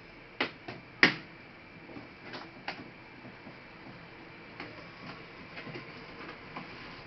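Sharp clicks and light taps of laptop parts and tools being handled during disassembly, the loudest click about a second in, followed by smaller scattered taps.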